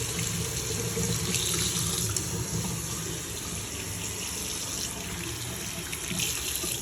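Kitchen sink faucet running a steady stream of water, shut off near the end. It runs as a hot-water test of a tankless water heater, which is not heard firing.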